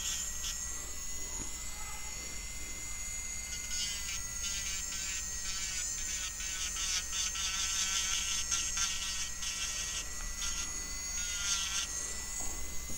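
Electric nail drill (e-file) running at high speed with a steady high-pitched whine, its bit grinding over the nail around the cuticle.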